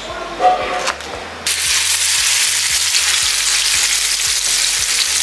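Fish frying in hot oil in a pan: a dense, steady sizzle that starts suddenly about a second and a half in. Before it, a few knocks of a knife chopping okra on a wooden board.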